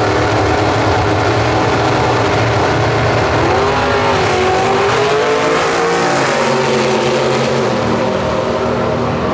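Gasser drag-racing car engines running loudly. A little over three seconds in, one engine note climbs in pitch, holds, and falls away about six seconds in.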